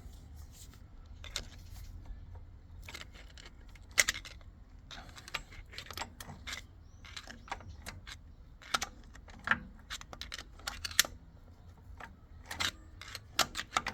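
Irregular small clicks and light taps of a position sensor being handled and worked onto the shaft of a Toyota MMT gear shift actuator, while the sensor is still off centre and will not turn.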